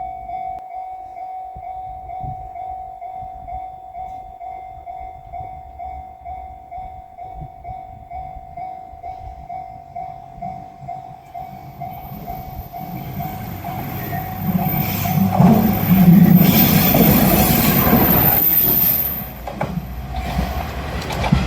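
Japanese level-crossing bell ringing its steady repeating "kan-kan" tone. About halfway through, a JR Shikoku 1500-series diesel railcar is heard approaching; its rumble and wheel noise grow and are loudest in the last quarter as it passes through the crossing. The train noise then drops away suddenly while the bell keeps ringing.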